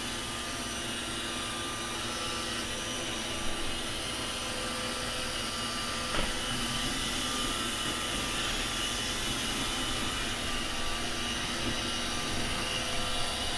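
iRobot Roomba 561 robot vacuum running: a steady, loud whir from its vacuum motor and brushes, with a couple of short knocks along the way.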